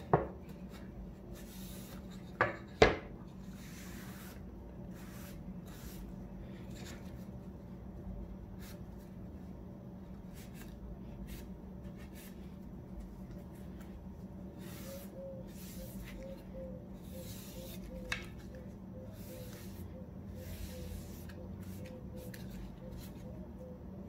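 Cloth rag rubbing wood finish onto a pine board, in short, uneven wiping strokes about once a second. A few sharp wooden knocks in the first three seconds, and a lighter one later, as the board is handled on the table.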